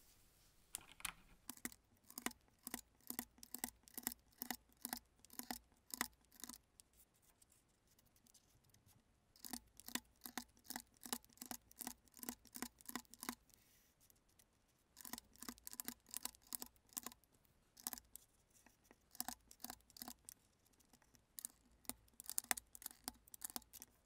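Keycaps being pried one by one off a SteelSeries Apex Pro TKL keyboard with a keycap puller, and set down on the desk: a run of sharp little plastic clicks, about two a second, in three spells with short pauses between.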